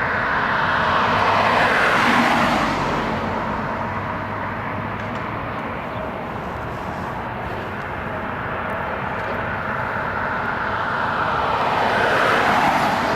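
Road traffic: two vehicles pass with tyre and engine noise, the first loudest about two seconds in and the second near the end.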